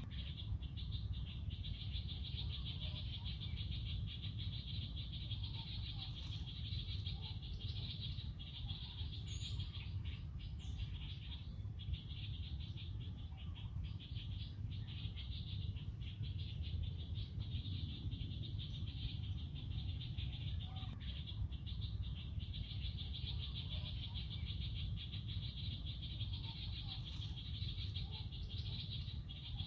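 Tropical forest ambience: a steady, high-pitched, finely pulsing chorus of calling animals over a low rumble, with a few brief high chirps.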